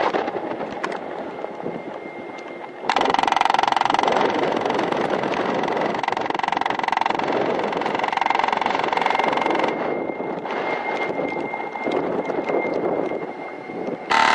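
Wind and heavy rain on the microphone, then a loud steady electrical buzz from the rain-soaked camera malfunctioning, switching on abruptly about three seconds in, cutting off around ten seconds in and coming back right at the end.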